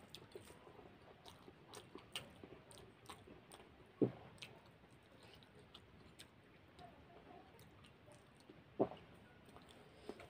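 Close-up chewing and mouth sounds of a person eating rice by hand, with fingers working food on a steel plate. Many small clicks, and two louder short knocks about four and nine seconds in.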